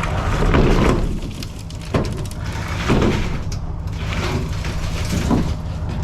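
A vehicle engine idling, with several knocks and scrapes over it at about half a second, two, three and five seconds in.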